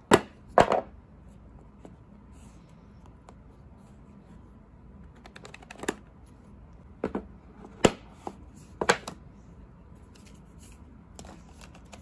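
Smartphones and their cardboard box being handled on a tabletop: two sharp knocks in the first second, then light rustling and tapping, and another run of knocks and clacks between about six and nine seconds in as a phone is lifted out of its box and set down.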